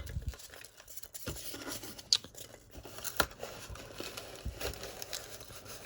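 A card box and its plastic-wrapped packs being opened and handled: scattered sharp clicks, snips and light crinkling of cardboard and plastic.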